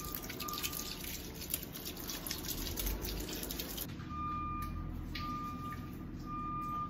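Water from a garden hose pouring into a twin-tub washing machine's wash tub and splashing onto soapy clothes. About four seconds in it drops to a softer, quieter trickle.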